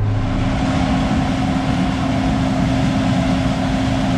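Large diesel farm machine running steadily: a constant engine hum over a broad rushing noise.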